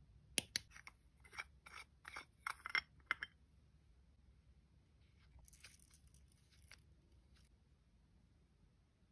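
Small plastic nail-art containers and a mini UV lamp being handled on a tabletop. A quick run of sharp clicks and taps comes in the first few seconds, then a softer scraping rustle.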